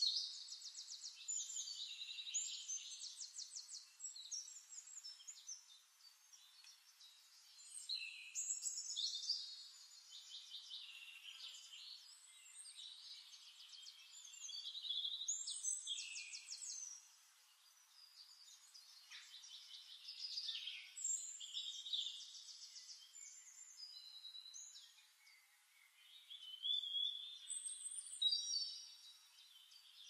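Songbirds singing: phrases of rapid, high-pitched trills and chirps, each a couple of seconds long, coming every five or six seconds.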